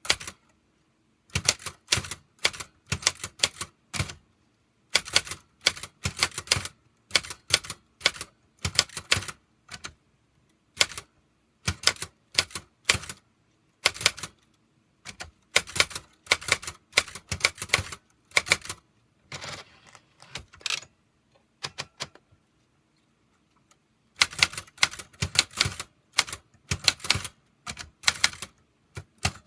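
Typewriter keys being struck in quick runs of clicks, broken by short pauses, with a longer lull around the middle.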